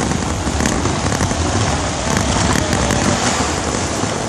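Steady rush and crackle of wind on the microphone of a moving rider, with tyre noise on wet pavement.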